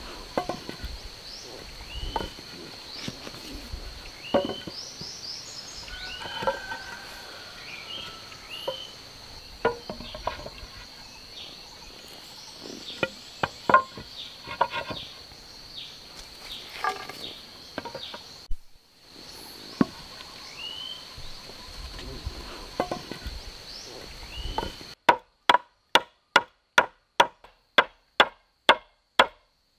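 Peeled wooden poles knocking and clattering as they are laid side by side on the ground, over a steady high insect drone and a rising chirp repeated every couple of seconds. Near the end a wooden mallet drives wooden pegs into a pole frame, sharp knocks about two to three a second.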